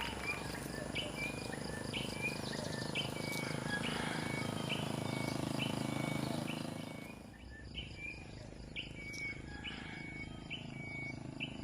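A bird repeating a short, slightly falling chirp, about one and a half times a second, over a steady low background rumble that eases off about two-thirds of the way through.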